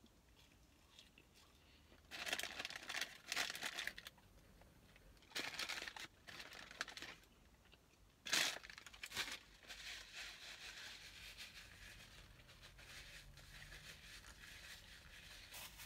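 Close-up mouth sounds of someone chewing French fries, with crunchy, crinkly bursts of chewing in the first nine seconds, then quieter.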